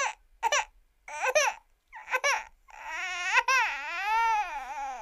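Cartoon crying sound effect for a cougar: four short sobbing cries, then one long wailing cry that wavers up and down in pitch and fades away at the end.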